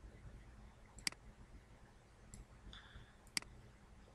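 Computer mouse button clicks, two sharp ones about two seconds apart, with a fainter click between them, over quiet room hum.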